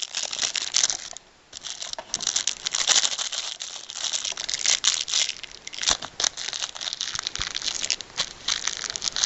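Packaging around a camera battery being crinkled and torn open by hand: a busy run of crackling and crinkling with sharp clicks, broken by a brief pause about a second in.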